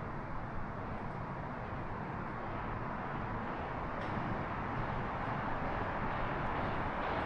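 Steady outdoor background hiss and rumble with no distinct events, slowly growing a little louder.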